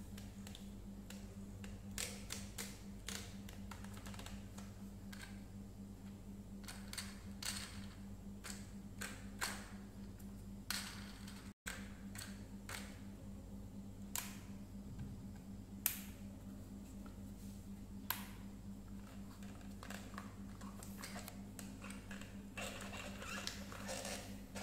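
Hard plastic parts of a toy robot clicking and tapping as they are handled and fitted together: scattered, irregular sharp clicks over a steady low hum, with a brief drop-out about halfway.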